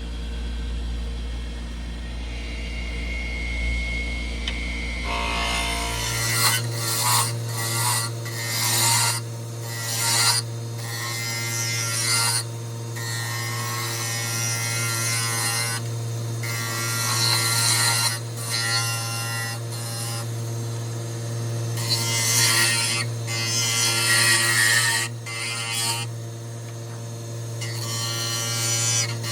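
Wood lathe running with a steady motor hum that steps up in pitch about six seconds in, while a cutting tool scrapes intermittently against a spinning curly cherry blank.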